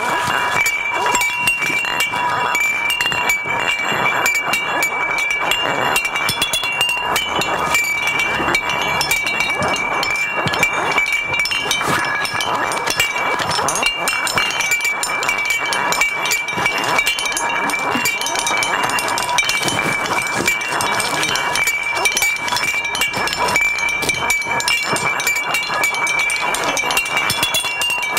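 Dense, continuous clinking and rattling of hard recyclable waste being played as an instrument, with a few steady ringing tones held underneath.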